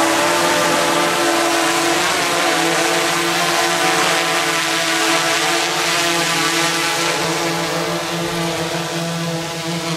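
DJI Inspire 1 Pro quadcopter's propellers giving a loud, steady buzzing hum as it comes down and hovers close by before landing.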